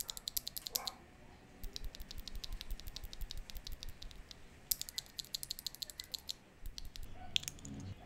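Loose Gateron Red linear switches pressed rapidly between the fingers, a factory-lubed one beside an unlubed one: quick runs of light clacks, about eight presses a second, in several bursts with short pauses between them.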